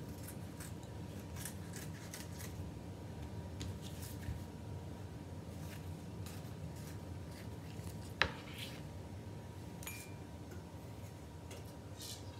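Scissors snipping through a banana leaf: a run of short, crisp cuts, with one louder, sharper click about eight seconds in.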